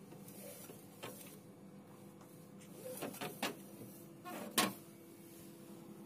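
A few plastic clicks and knocks from handling the inside of a refrigerator, the loudest about four and a half seconds in, over a steady low hum.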